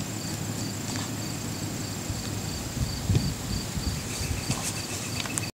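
Insects chirping: a steady high trill under a lower chirp that pulses about three times a second. A few low rustles sound about three seconds in, and the sound cuts off abruptly near the end.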